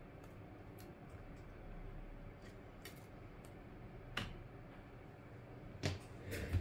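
Light clicks and taps of small phone parts being handled: the metal LCD shield plate coming off an iPhone 6 display assembly and being set down on a rubber repair mat. A few sharp clicks, the loudest about four seconds in and twice near the end, over a faint steady hum.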